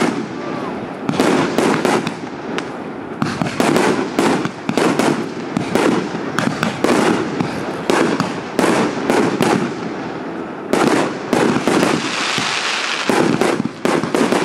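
Aerial fireworks shells bursting one after another: a rapid, overlapping string of sharp bangs, with a steadier crackle near the end.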